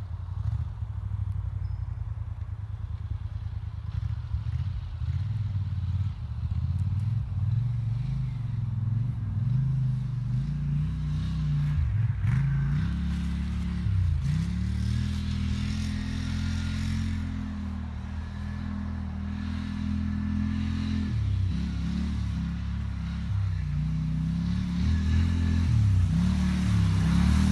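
Polaris XP quad's engine running under way, the revs repeatedly dropping and climbing again as the throttle is eased and opened.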